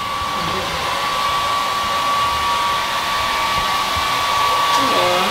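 Handheld hair dryer running steadily: a constant rush of air with a steady whine.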